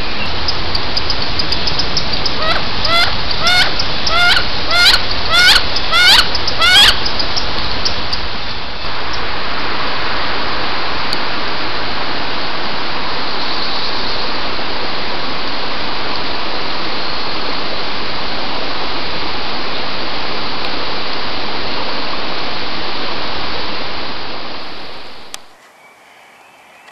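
A duck giving a quick series of about seven rising, squealing calls over a steady rushing noise. The calls stop about seven seconds in, and the rushing goes on until it cuts off sharply near the end.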